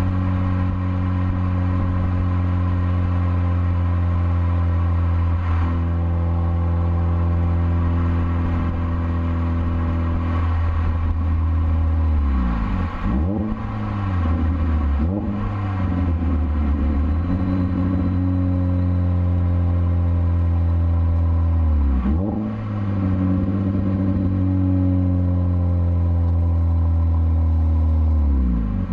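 Naturally aspirated Hyundai Veloster's 1.6-litre four-cylinder heard at the tailpipes through an aftermarket axle-back exhaust while driving: a steady low drone under way. In the second half the engine note several times dips sharply and climbs back up.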